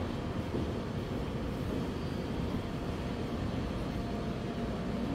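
Steady low rumbling ambience of an underground subway platform, with trains standing at the platform screen doors.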